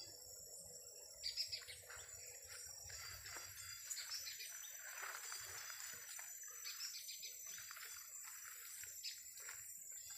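Tropical forest ambience: birds chirping over a steady high-pitched insect drone, with a few soft rustles a little over a second in.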